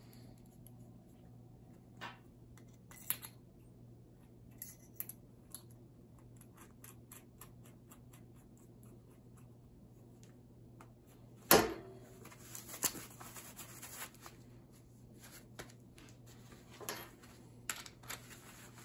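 Small metal clicks and scrapes of a hole saw, its arbor and pilot bit being handled and screwed together by hand, with one louder clack a little past halfway.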